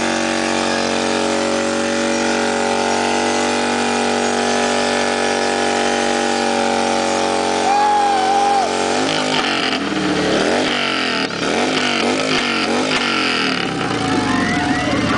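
Motorcycle engine held at high, steady revs during a burnout, spinning the rear tyre in place. About nine seconds in the engine note starts rising and falling in repeated swells as the throttle is worked.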